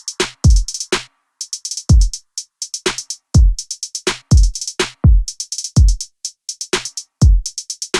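Electronic background music: a drum-machine beat of deep kick drums about twice a second, with quick hi-hat hits between them.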